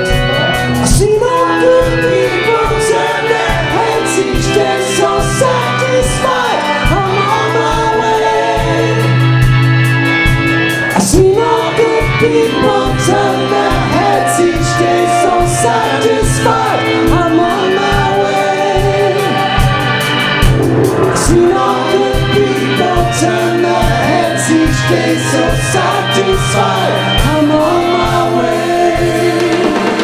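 Live soul-funk band playing: lead and backing singers over Hammond organ chords, electric guitar and drums keeping a steady beat.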